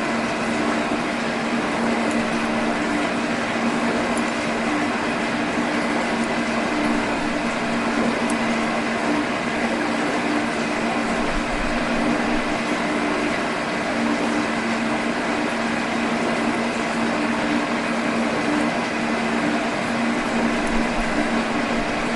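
Machine tool running steadily while cutting aluminum bar stock: an even mechanical whir with a steady low hum.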